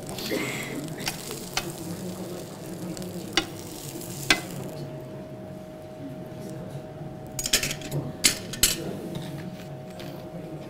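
A burger patty sizzling on an electric grill plate, with sharp clicks of a spatula against the plate; the sizzle dies away about halfway through as the patty comes off the grill, and a quick run of utensil clicks and clatters follows near the end.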